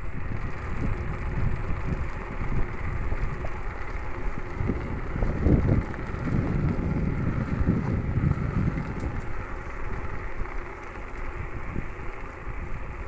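Wind buffeting the microphone over the rumble of a beach cruiser bicycle's tyres rolling along a tarmac lane, a steady noise that swells a little in the middle.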